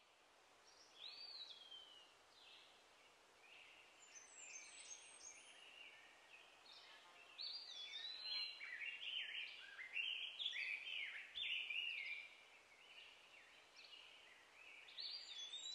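Faint outdoor birdsong: a varied run of short chirps and whistled phrases that rise and fall, busiest in the middle, over a low background hiss.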